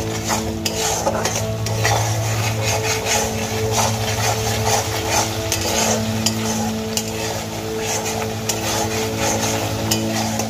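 A metal spatula stirring and scraping spice paste around a kadai, with the oil frying and sizzling. This is the stage of frying the ground masala down (kosha) before the vegetables go in.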